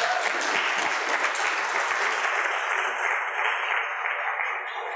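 Audience applauding at the end of a talk: a dense, steady clapping that dies away near the end.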